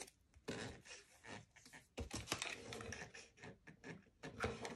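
Irregular close-up rustling, scratching and light clicking of jute twine being handled and wrapped around the stem of a pine cone.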